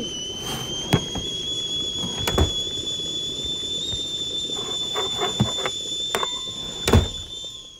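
Stovetop whistling kettle at the boil, giving a steady, high whistle that dies down near the end. It is punctuated by several sharp knocks, the loudest about seven seconds in.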